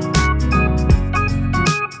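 Music with keyboard and a strong bass line over a steady beat, a drum hit about every second.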